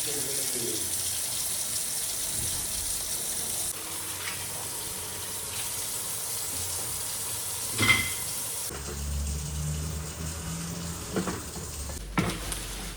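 Tap water running steadily into a kitchen sink during washing up, with a single sharp clink about eight seconds in.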